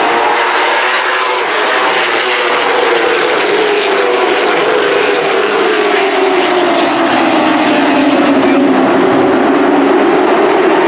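A pack of late model stock cars' V8 engines running together at speed, a loud, steady engine drone whose pitch sinks over several seconds in the middle before levelling off.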